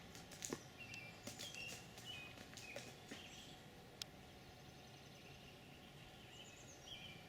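Faint outdoor ambience with birds chirping now and then in short high notes, and a few light clicks.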